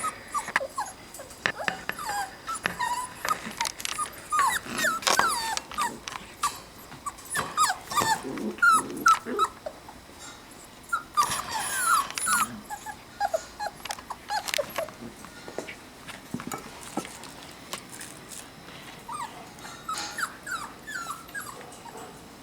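Rottweiler puppies whimpering and yipping in many short high squeals, with some growling. The calls come thick and fast for the first part and thin out toward the end.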